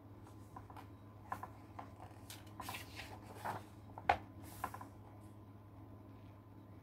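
Pages of a hardcover picture book being turned by hand: a run of soft paper rustles and clicks, then a louder tap about four seconds in as a hand presses the open pages flat.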